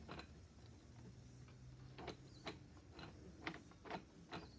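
Faint, irregularly spaced clicks and ticks from the gears and linkage of a hand-turned model variable-compression engine as its crank is rotated.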